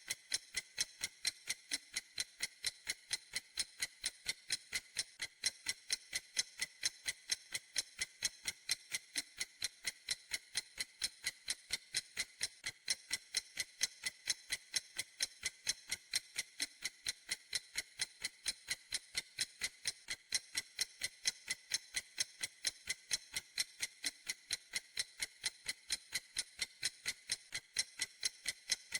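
Clock ticking steadily in an even rhythm of about three crisp, high ticks a second.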